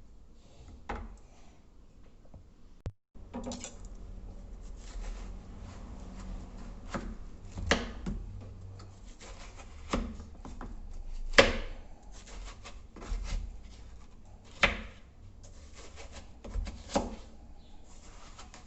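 Knife cutting a watermelon on a cutting board: slicing and scraping, with irregular sharp knocks of the blade against the board every second or few, the loudest a little past the middle.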